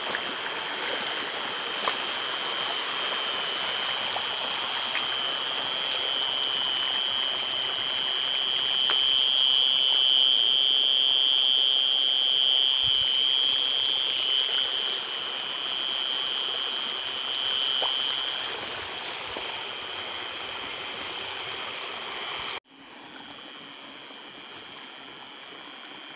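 A steady, shrill chorus of night insects over a constant hiss. It swells toward the middle, then cuts off abruptly a few seconds before the end and comes back quieter.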